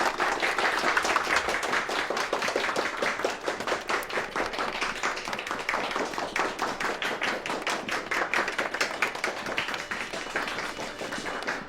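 A group of people applauding, many overlapping hand claps kept up steadily.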